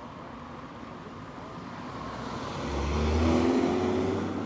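A car driving past, its engine and tyre noise growing to a peak about three seconds in and then fading away.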